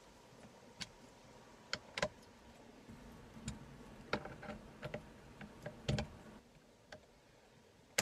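Ratchet wrench clicking in short, scattered spurts as the steering-wheel bolt is tightened.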